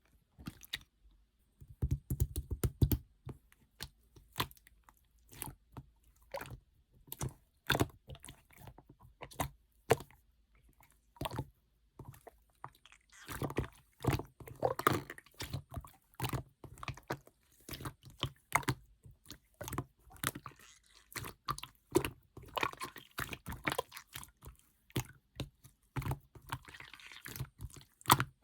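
Clear red slime being pressed, poked and stretched by hand, giving an irregular run of sharp wet clicks and pops, thickening into denser stretches of squishing now and then.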